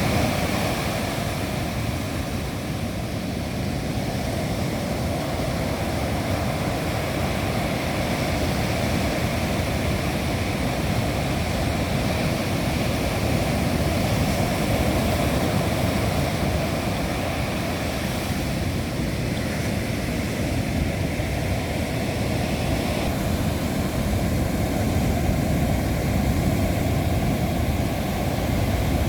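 Big Atlantic surf breaking in high winds, with wind on the microphone: a steady, unbroken rush of noise, heaviest in the low end.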